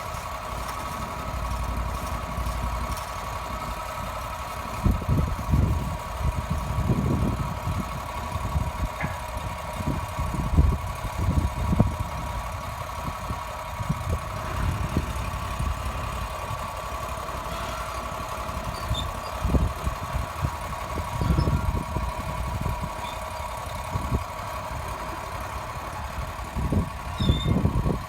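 An engine running steadily at constant speed, with irregular low thumps and rumbles over it.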